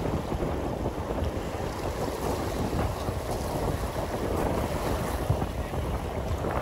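Wind buffeting the microphone over small waves washing onto the shore, a steady rushing noise.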